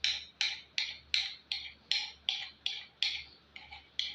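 Bastard file pushed in short, rhythmic strokes across the steel poll of a fireman's hatchet head, about two and a half rasping strokes a second, knocking off its sharp edges. The last few strokes near the end are lighter.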